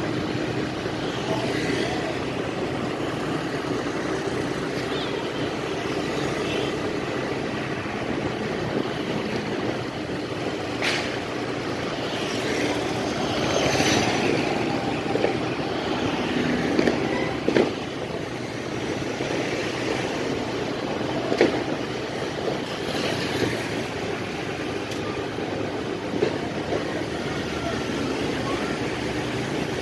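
Steady road and engine noise of a vehicle driving through town traffic, with a few short sharp pops or knocks scattered through it.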